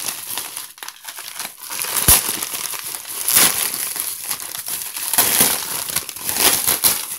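Bubble wrap crinkling and rustling as hands unwrap a parcel, with one sharp snap about two seconds in.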